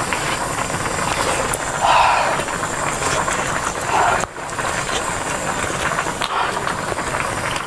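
A pot of Korean army stew (budae-jjigae) at a steady boil, a constant bubbling hiss. Two short puffs of breath, about two and four seconds in, from the eater breathing out around a mouthful of hot sausage.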